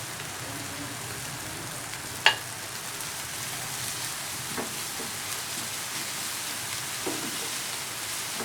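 Beaten egg with onion and tomato frying in oil in a pan, a steady sizzle, with a few sharp clicks against the pan, the loudest about two seconds in.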